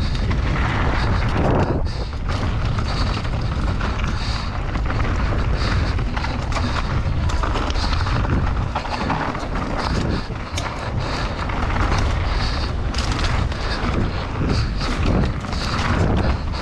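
Mountain bike descending a dirt and gravel trail at race speed, heard from a rider-mounted camera: wind buffeting the microphone, tyres running over dirt and loose stones, and frequent knocks and rattles as the bike hits bumps.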